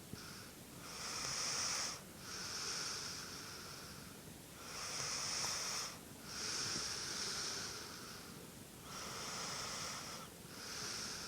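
Snoring: slow, long wheezy breaths in and out, each a hissy whistle, about six breaths with a full in-and-out cycle every four seconds or so.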